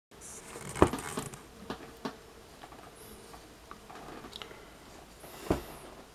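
Handling noise of gloved hands turning a metal ring: soft glove rustles and small ticks, with two sharp knocks, one just under a second in and one near the end.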